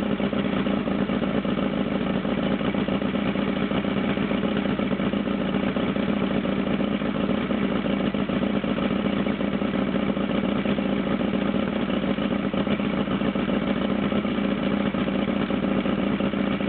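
Mercury 500 50 hp four-cylinder two-stroke outboard motor, cowling off, running steadily at a constant speed, with no change in revs.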